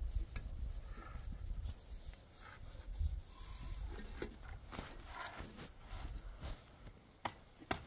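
Concrete blocks being laid by hand on top of a block wall: gritty scraping and rubbing of block and mortar, with sharp knocks now and then and a cluster of them near the end.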